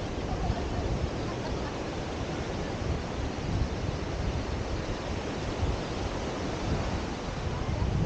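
Steady wash of sea surf and wind, with wind buffeting the microphone.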